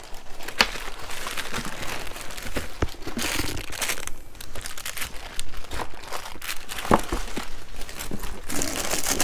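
Packaging crinkling and rustling while items are handled and pulled from a box, with a few sharp clicks.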